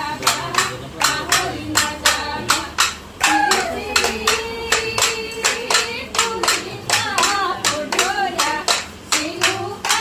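Steady rhythmic hand-clapping, about three claps a second, with voices singing along.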